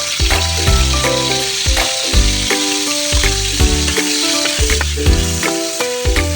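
Food frying and sizzling in a pan, a steady hiss, under background music with clear notes and a regular beat.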